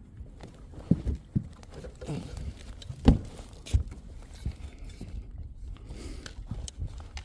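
A handful of dull knocks and thumps in a small fishing boat, the loudest about three seconds in, over a low rumble of wind on the microphone.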